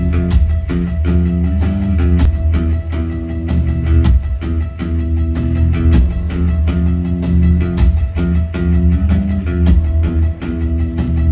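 Post-punk band playing live, heard from the audience: a heavy, steady bass line, sustained guitar and keyboard notes and a regular drum beat.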